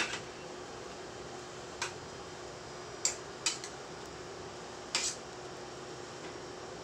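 A spoon gently stirring chicken pieces in a stainless steel pot, with a few light clinks of metal on metal about two, three and five seconds in, over a faint steady hum.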